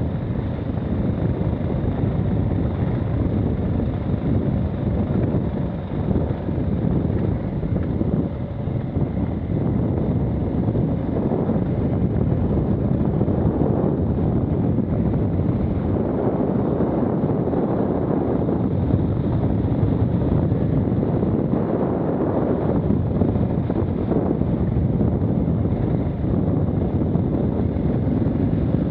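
KTM 690 Enduro R's single-cylinder engine running steadily as the motorcycle rides a dirt singletrack, mixed with wind buffeting on the camera microphone.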